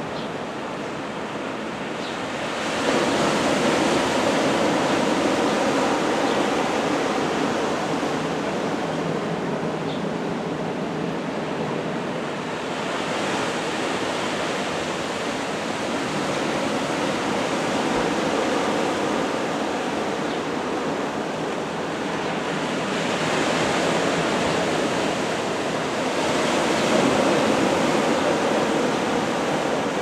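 Strong wind and sea surf making a steady rushing noise that swells louder about every ten seconds.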